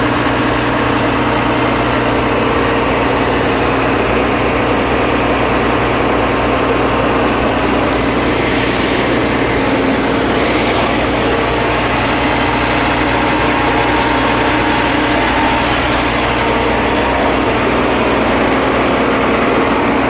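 Asphalt paver's Cummins 5.9-litre diesel engine running at a steady speed, with an even, unchanging hum.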